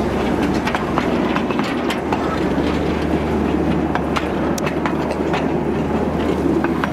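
Miniature railway train running along its narrow-gauge track, heard from a carriage: a steady rumble and hum of the running train with irregular clicks of the wheels over the rails.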